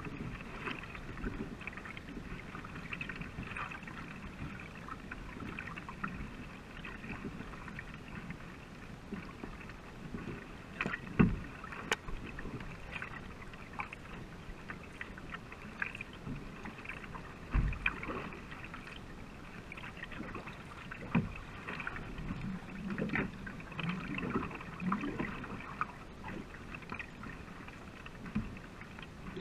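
Paddles dipping and pulling through the water beside a racing canoe, with water splashing and trickling along the hull in an even rhythm of strokes. A few louder low knocks sound now and then.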